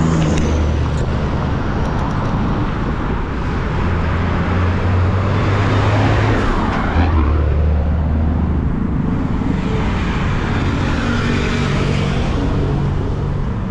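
Heavy city road traffic with engines running close by. A vehicle passes near about halfway through.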